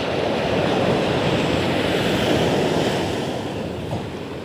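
Surf washing up onto the beach: a steady rushing noise that swells just after the start and eases off near the end.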